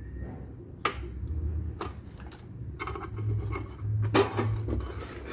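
A few sharp clicks and small knocks of metal RCA plugs being handled at a car amplifier's input sockets, over a low steady hum.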